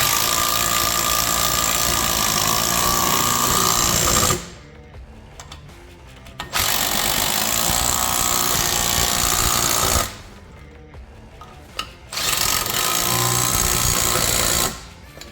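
Power impact wrench running bolts into a front hub in three bursts of a few seconds each, with short pauses between.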